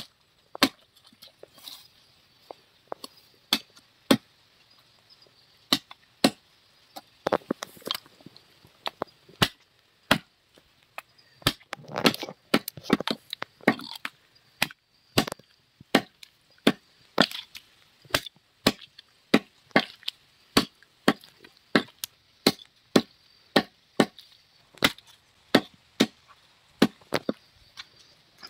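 Butcher's knife chopping through a dressed chicken onto a wooden chopping block: a string of sharp strikes, sparse and uneven at first, then steady at about two a second from about halfway through.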